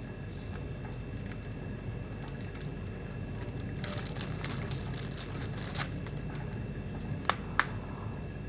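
Handling noise from a small carabiner keychain and its packaging: light rustling over a steady low background rumble, with two sharp clicks in quick succession near the end.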